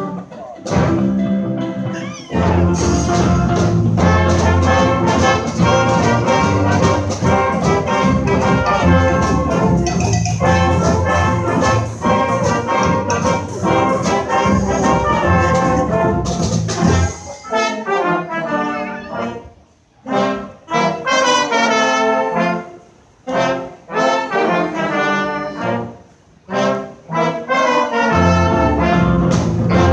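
Brass band playing live: trumpets and trombones over a low bass line. About 17 s in the bass drops out and the horns play short phrases broken by brief pauses, and the full band comes back in near the end.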